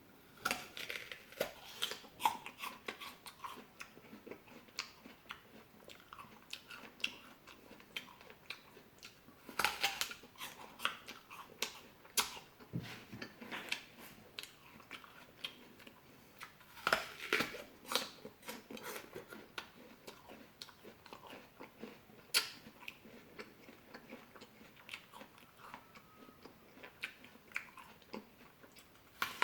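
A person eating fresh fruit close to the microphone: bites and chewing with many small wet clicks, with louder clusters of bites about ten and seventeen seconds in.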